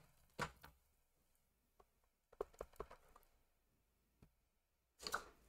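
Near silence broken by a few faint clicks and taps as an ink pad and a clear acrylic stamp block are handled on a craft table, with a cluster of small ticks midway and a short rustle near the end.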